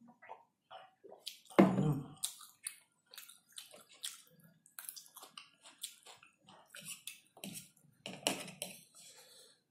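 Close-miked eating sounds: a swallow of juice from a glass, a loud thump about a second and a half in, then irregular chewing and wet mouth sounds of fried noodles, with the fork clicking against the plate.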